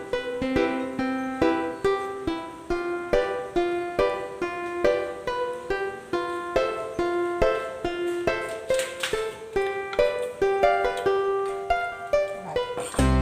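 Background music: a plucked ukulele melody of short, quickly repeated notes.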